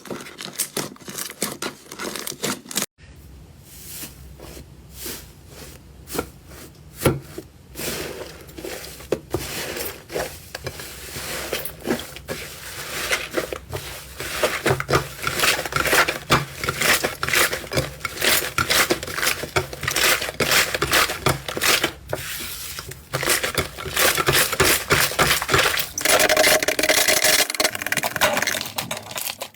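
Slime being handled and squished, making a dense run of sticky clicks and crackles. The sound changes abruptly a few times as one clip gives way to the next.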